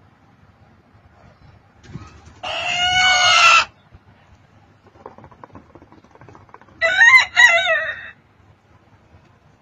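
Cochin bantam roosters crowing twice, each crow a little over a second long and a few seconds apart, the second one with a brief break in the middle. Faint clucking between the crows.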